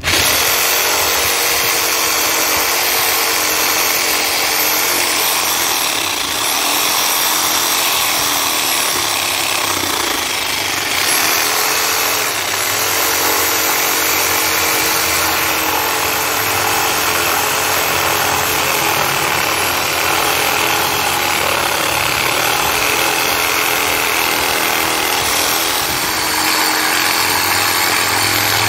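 Hyper Touch 6.5 amp corded reciprocating saw running, its bigger blade cutting through a birch log. The motor starts at once and its pitch wavers as the blade bites, with brief dips in loudness about six and eleven seconds in.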